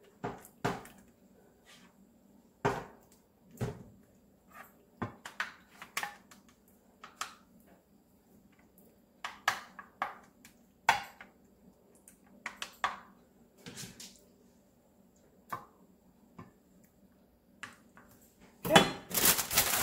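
A plastic spoon knocking and scraping against a metal skillet and a glass baking dish as meat sauce is spooned in, in scattered irregular clicks and taps. About a second before the end, a plastic bag starts crinkling loudly.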